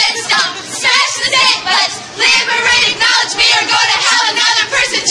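A group of young women singing a protest cheer together, loud and continuous.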